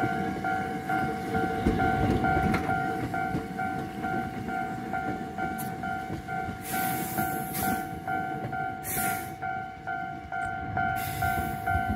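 Hankyu 6300 series train rolling past a level crossing, its wheels rumbling on the rails, with a few short bursts of hiss in the second half. Through it the crossing's warning bell rings steadily at about two pulses a second.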